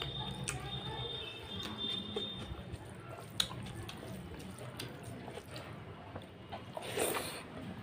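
Wet squishing and squelching of rice and curry gravy being mixed and squeezed by hand on a plate, with small clicks throughout and a sharp click about three and a half seconds in. A short, louder wet burst comes near the end.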